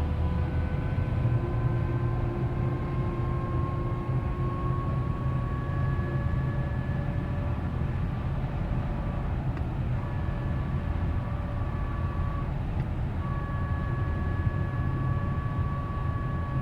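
2012 Cadillac CTS4 under acceleration at speed, road rumble overlaid by a whining sound in several pitches that slowly rises as the car gathers speed. The whine cuts out briefly twice in the second half and then returns, in keeping with the accelerator being eased off and pressed again. It is an acceleration-dependent drivetrain whine of unknown cause.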